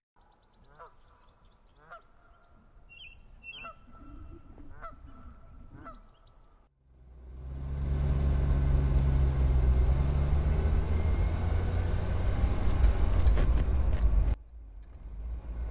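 A bird calling in short repeated calls with a few higher chirps, then from about seven seconds in a loud steady low rumble that drops away sharply near the end.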